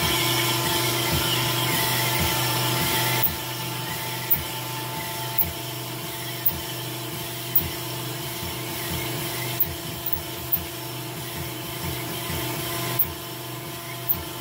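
Vertical cylinder honing machine running a hone with fine stones up and down a bore of a Nissan RB30 engine block. A steady machine hum sits under the rubbing of the stones on the cylinder wall, with a sharp tick about once a second. The rubbing finishes the bore for the piston rings.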